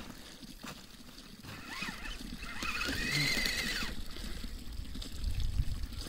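Kyosho Blizzard EV RC snowcat's electric motor whining as it drives over the snow, the whine rising and then falling in pitch over a couple of seconds in the middle.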